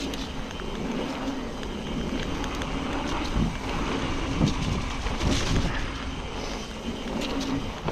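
Trek Fuel EX 9.8 29 mountain bike riding a wet trail: a steady rumble of tyres over the ground with a loose rattle of many small clicks from the bike, and wind on the helmet or chest camera's microphone.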